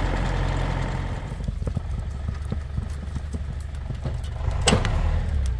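Case tractor engine running low, its drone dropping back after about a second. Irregular crunching and snapping of snow and twigs follows, two or three times a second, with one louder sharp crack or clank about four and a half seconds in.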